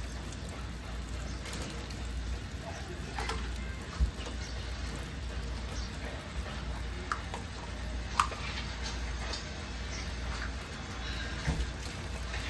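Water running steadily from a tap, with three short sharp clicks spread through it.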